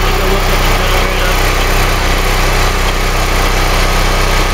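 A 10,000-watt propane (LP) generator running steadily with its compartment cover off, giving an even engine drone that does not change in speed.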